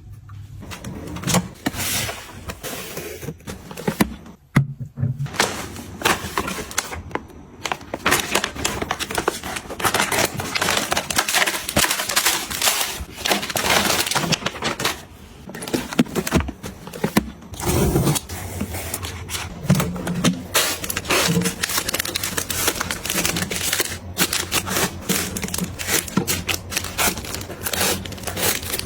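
Dense run of small clicks, taps and rustles: groceries and plastic packaging being handled, unpacked and set down while restocking.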